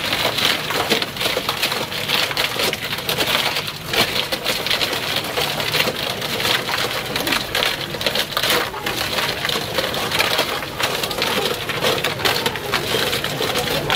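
Dense crackling and scraping as ice cream freezes onto a spinning chilled steel roller drum under a gloved hand, over the steady low rumble of the drum machine.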